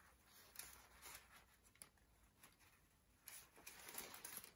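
Near silence, with faint rustling and a few light clicks as a folded umbrella's canopy and frame are handled. The sounds are scattered and get a little busier near the end.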